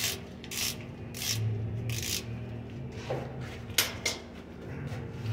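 Ratchet wrench clicking in a series of short rasping strokes as a truck differential's drain plug is worked loose, with a sharp click about four seconds in.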